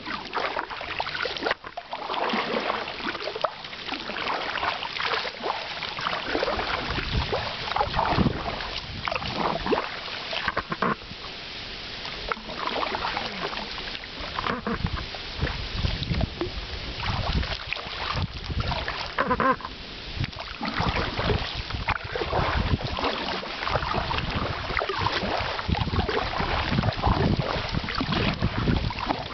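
Paddles dipping and splashing around plastic-bottle canoes being paddled along calm water, in uneven strokes one after another.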